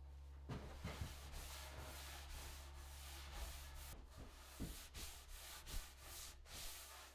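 Cloth rag wiping oil finish along a sanded oak top: faint, repeated rubbing strokes over a low steady hum.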